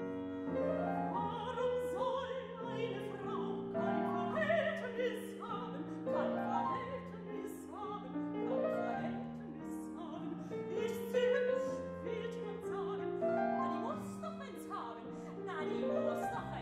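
A mezzo-soprano singing an operetta chanson in German with vibrato, accompanied on a grand piano.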